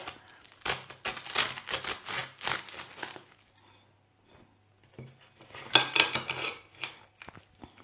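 A knife cutting through the crisp crust of a freshly baked bread roll: a run of crackling, crunching strokes lasting about three seconds. A short clatter follows about six seconds in.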